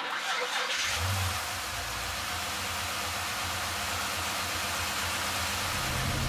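Twin-turbo 427 cubic-inch V8 in a Holden VY Commodore SS starting about a second in, then idling steadily under a constant rushing hiss. The engine note steps up and grows louder near the end.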